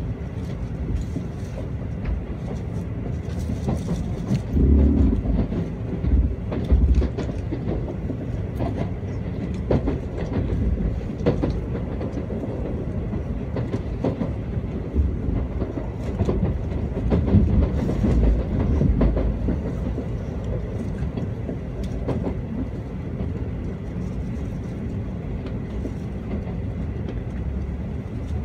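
N700A Shinkansen train heard from inside the passenger car while running: a steady low rumble of wheels on rail, with irregular clicks and a few heavier thumps.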